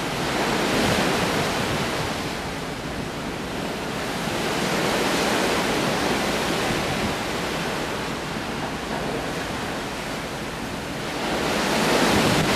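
Wind rushing over the camcorder microphone together with the wash of the sea, a steady rushing noise that swells and eases every few seconds, loudest near the end.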